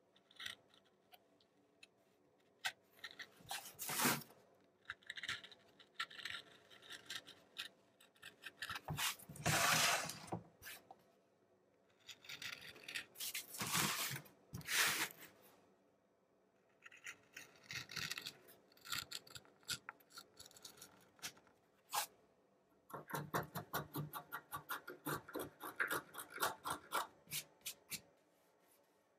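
Hand woodblock-carving tools, a knife and a gouge, cutting into a plywood block: separate scraping cuts, a few of them louder, then a quick run of short chipping strokes near the end.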